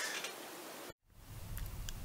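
Faint room tone: a steady hiss. It drops out completely for a moment about a second in, and comes back with a low hum underneath.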